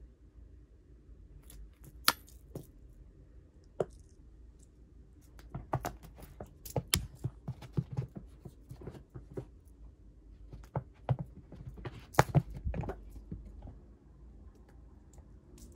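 A cat playing with a string toy on a towel over carpet: scattered clicks, scuffles and thumps from its paws and claws, with a couple of single sharp clicks early and two busier flurries in the middle and toward the end.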